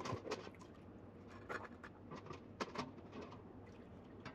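Faint, scattered clicks and light knocks of hard boiled-crab shells being handled and sorted, a couple of slightly louder knocks about a second and a half in and a little later.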